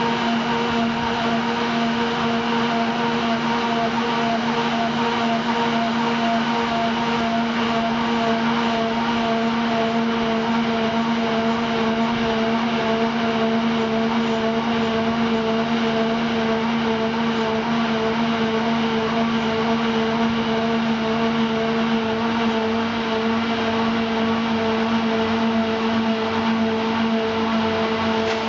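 Apiesse Rotopress 2C silage bagger running steadily while chopped maize is tipped into its hopper, with the engines driving it running: an even, unchanging machine hum with a strong low tone over a steady rushing noise.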